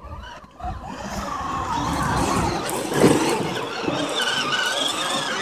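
Children's battery-powered ride-on quad driving over grass: its electric motor and gearbox whining as the plastic wheels roll, starting up about a second in, with a louder burst about three seconds in.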